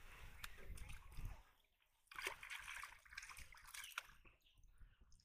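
Faint, irregular sloshing and small splashes of water as a man wading waist-deep hauls a hooked fish in on a hand line.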